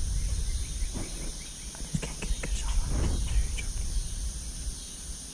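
Summer woods ambience: a steady high insect hum under a low rumble, with scattered light clicks and rustles. The rumble eases off near the end.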